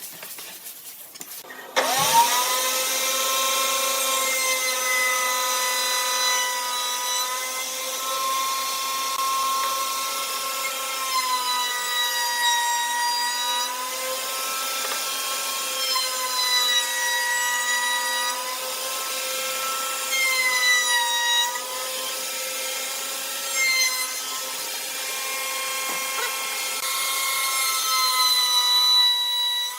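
Electric power tool working wood: a motor whine that starts about two seconds in and repeatedly dips and recovers in pitch, over a steady low hum.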